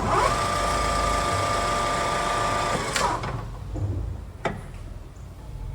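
DoAll 13" x 48" engine lathe spindle and headstock gearing starting up, running at the 1,000 rpm setting with a steady gear whine for about three seconds, then winding down. A couple of sharp clicks follow.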